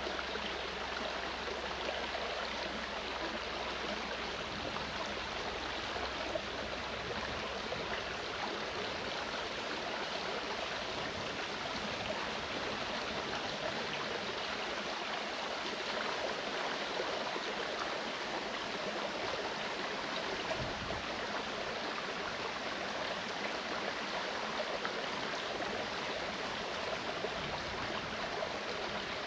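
Clear mountain stream running over rocks: a steady rush of flowing water.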